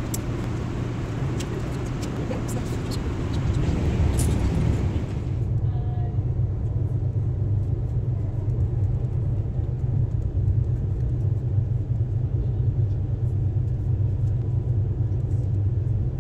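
Steady low rumble of a vehicle running, with a hiss over it that drops away suddenly about five seconds in.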